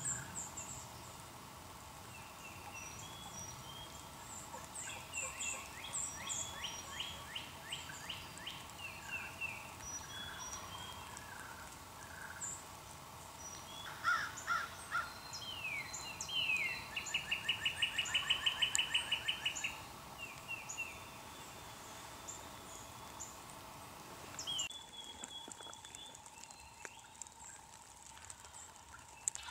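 Turkey yelping, a run of quick, even notes at about five a second that lasts about three seconds past the middle, after a quieter run of notes earlier on. Small songbirds chirp throughout.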